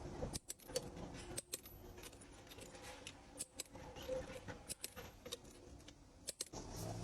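Scattered light clicks and small metallic clinks, a dozen or so irregular ticks over faint background noise.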